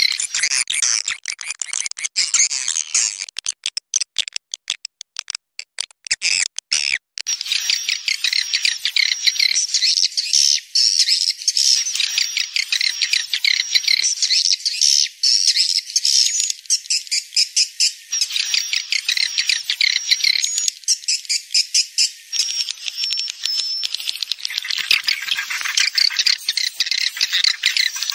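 Swiftlet lure call: a recording of many swiftlets chirping and twittering in a dense, high-pitched chatter with rapid clicking, mixed from the sounds of swiftlets at roost. Between about 3 and 7 seconds it thins to scattered clicks, then the chatter comes back full.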